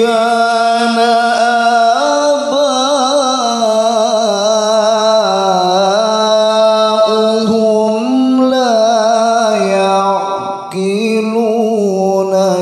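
A man reciting the Qur'an in the melodic, drawn-out mujawwad style, holding long notes that waver with ornaments on single syllables. About ten seconds in the voice breaks off briefly, then starts a new phrase.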